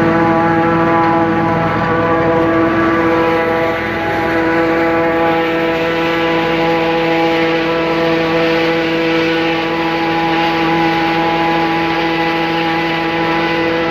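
John Deere 4250 tractor's six-cylinder diesel and the John Deere 3970 pull-type forage harvester running steadily under load while chopping rye, with a constant mechanical hum of several steady tones.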